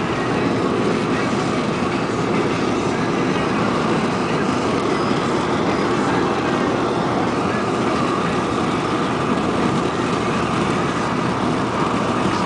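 Steady road and engine noise of a moving car, heard inside the cabin.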